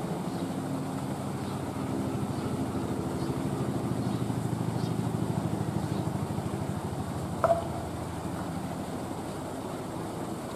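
A steady low mechanical hum, like a motor running, with one sharp click about seven and a half seconds in.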